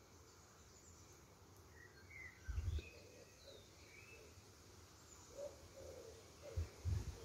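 Small birds chirping in the background. There is a brief low rumble about two and a half seconds in and another near the end. The snail's own eating cannot be heard.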